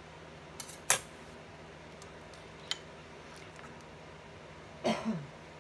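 Two sharp clicks, the second loud, as the seal of a ground black pepper container is pried open, then a small tick; near the end a brief cough.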